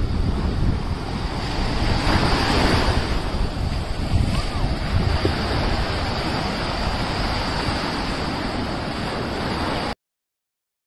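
Sea waves breaking and washing up on the shore, with wind buffeting the microphone into a heavy rumble. A wave surges in loudest about two seconds in, and the sound cuts off suddenly near the end.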